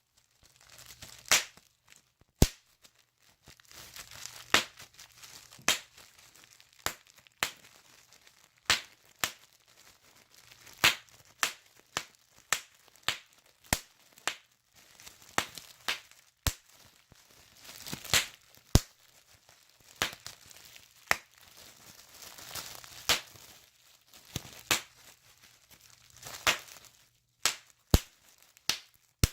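Plastic bubble wrap being popped by hand, one bubble at a time: sharp pops at an irregular pace of about one a second, with the plastic crinkling between them.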